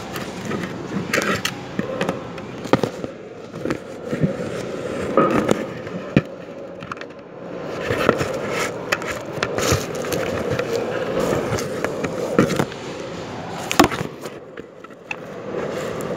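Phone handling noise: fingers rubbing and knocking on the phone's body right at its microphone, an irregular run of scrapes and sharp clicks.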